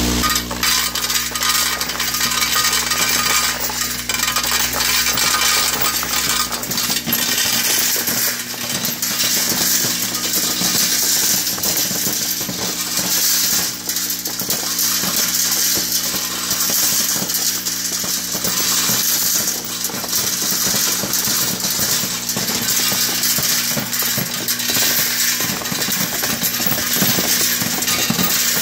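Spent brass cartridge cases tumbling and clinking without a break inside a rotating perforated stainless-steel trommel drum, over the machine's steady low hum, as the drum sifts 9mm cases out of .223 and .308 brass.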